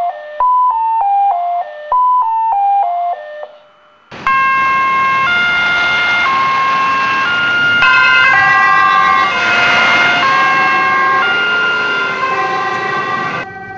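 European-style two-tone emergency-vehicle sirens, several at once, alternating between a high and a low note over a dense background noise. They start about four seconds in, after a short pause. Before that, a quick electronic tone pattern repeats a descending run of five notes three or four times.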